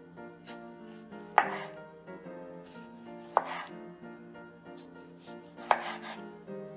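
Knife cutting food on a cutting board: three loud strikes about two seconds apart, with lighter cuts and clicks between them, over background music.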